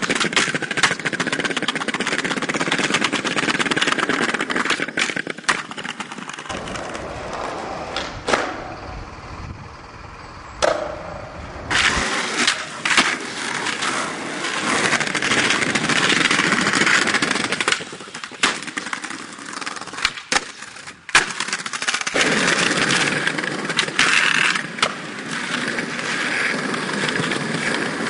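Skateboard wheels rolling, broken by many sharp clacks of the board hitting the ground, across several spliced clips whose sound changes abruptly.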